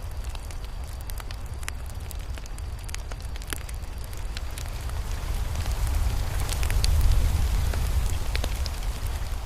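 Campfire burning, with frequent sharp crackles and pops over a steady low rumble of the flames that swells for a few seconds in the second half.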